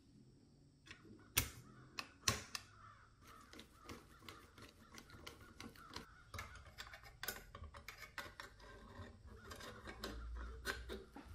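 Small sheet-metal airgun parts clicking and tapping as they are handled and fitted together on a wooden bench: two sharper clicks in the first couple of seconds, then a run of quick, light clicks.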